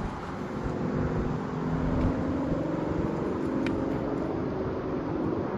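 A car engine running steadily, swelling a little around two seconds in.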